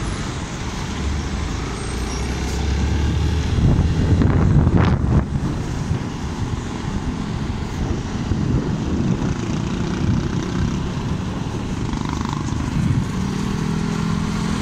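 Riding on a motorcycle in traffic: wind rushing over the microphone with road and engine noise, louder for a moment about four to five seconds in. A steady engine hum comes up near the end.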